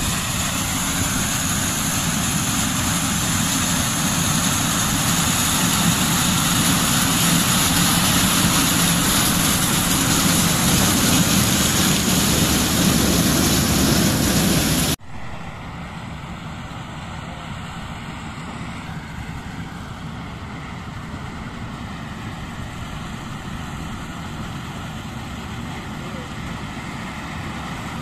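Corn harvester running as it cuts standing maize, loud and steady as it works close by. About halfway through the sound cuts off abruptly to a quieter, steady machine noise of the harvester farther off.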